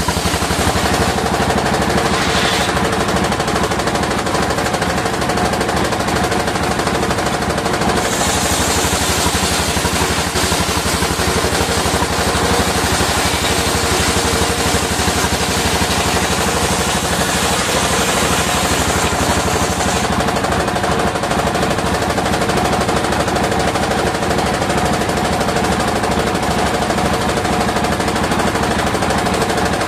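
Circular sawmill running steadily with a very fast, even rattling beat from its drive. From about eight seconds in until about twenty seconds a higher, hissing sound joins it, as the blade cuts through waru timber.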